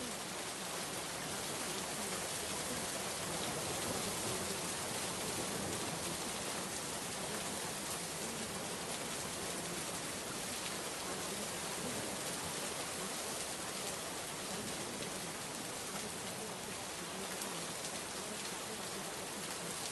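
Steady rain: an even hiss of falling drops that holds the same level throughout.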